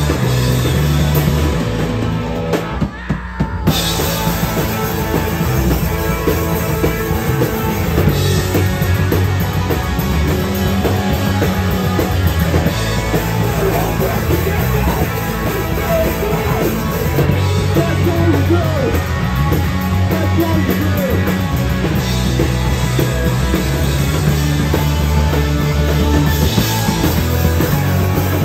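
Live rock band playing electric guitars and a drum kit, a full steady wall of sound. The music briefly thins out about three seconds in before coming back at full strength.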